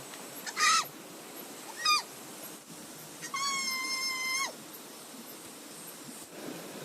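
An animal calling three times: two short falling cries, then one longer high, steady call that drops in pitch as it ends.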